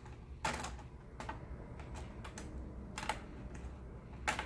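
A few separate sharp plastic clicks and taps from laptop parts being handled and snapped back into place.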